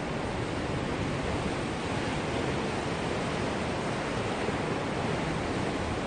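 Steady, even hiss of sea surf washing on the shore.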